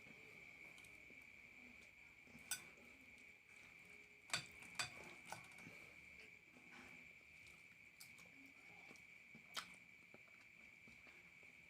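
Faint eating sounds: about five short, sharp clicks and smacks, the loudest pair about four and a half seconds in, over a steady high-pitched whine.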